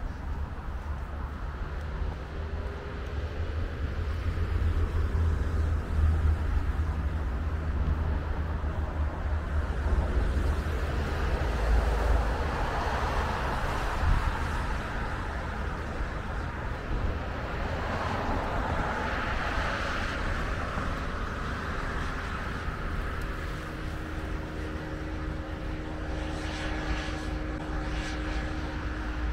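Road traffic on a wide multi-lane street: a steady low rumble with vehicles swelling past, loudest through the middle.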